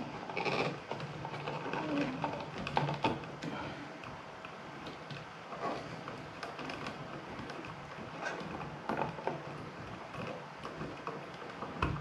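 Scattered small clicks and rustling of electrical wires being handled and worked into a push-in wire connector, here the hot wire being pushed in.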